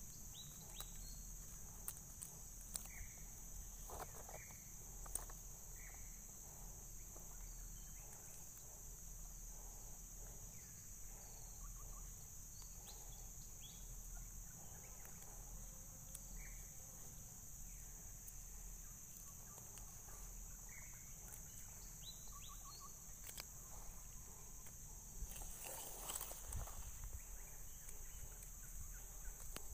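Steady high-pitched drone of insects, with faint scattered rustles and clicks in the grass and a louder rustle near the end.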